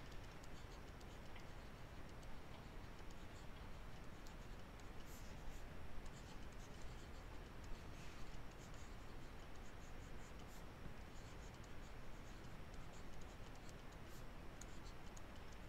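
Faint scratching of a stylus writing on a tablet, in short strokes, over a low background hiss.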